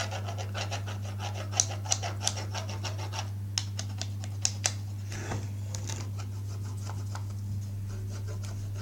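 Black colouring tool scratching on paper in quick back-and-forth strokes, adding dark shading and outlines; the strokes are dense for about five seconds, then fewer and lighter. A steady low hum lies underneath.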